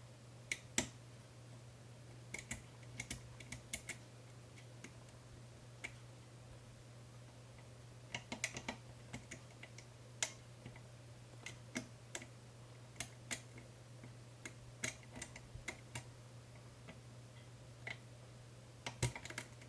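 Light, irregular metallic clicks and ticks of a lock pick working the chisel-tipped pins of a 5-pin Medeco cam lock, with a steady low hum underneath. The picker takes it that he has overset a pin, as the plug has stopped binding.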